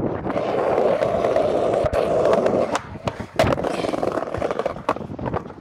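Skateboard wheels rolling over brick pavers with a steady rumble, then the sharp pop of the tail about three seconds in and the board landing about half a second later, a landed pop shove-it, after which the rolling goes on more quietly.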